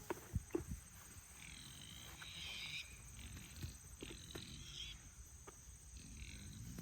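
Faint animal calls, two short high-pitched stretches in the middle, over a low rumble, with a few knocks in the first second.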